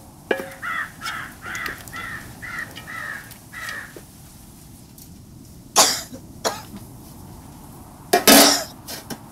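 A crow cawing about eight times in quick succession. Later come two sharp knocks and then a loud metal clatter as an aluminium lid is set on a cooking pot.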